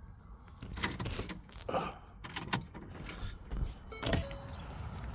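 Car keys jangling, with a series of sharp clicks and clatters as the ignition key is handled and turned on.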